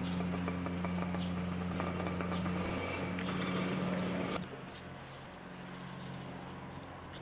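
A motor running steadily as a low hum, under outdoor noise and a few short high chirps; about four seconds in it cuts abruptly to a quieter, lower hum.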